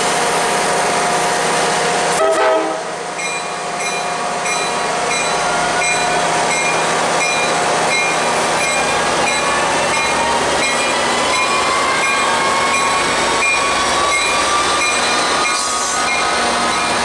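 Tri-Rail diesel locomotive idling at the platform, with a short burst of noise about two seconds in. Its bell then starts ringing at about two strokes a second as the engine throttles up and the train pulls away, with a slowly rising whine.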